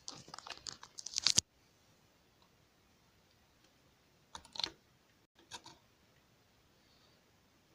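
A few light clicks and knocks from a container being handled: a quick run in the first second and a half, then two short bursts around four and a half and five and a half seconds in, with near silence between.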